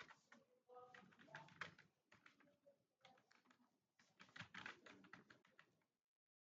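Rapid typing on a computer keyboard, quick keystroke clicks in bursts with short pauses, cutting off suddenly about six seconds in.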